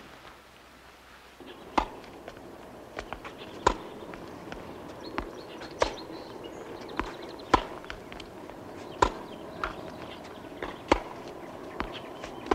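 A ball being hit back and forth with rackets in a rally. There is a loud sharp strike about every two seconds, with fainter knocks of the ball bouncing in between.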